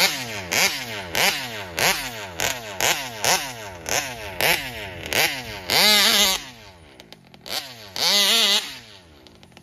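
Gas two-stroke engine of a large-scale Taylor RC 71 Supreme buggy revving in quick throttle blips, about two a second. It then opens up in two longer full-throttle bursts, past halfway and near the end, dropping back to a low idle between them.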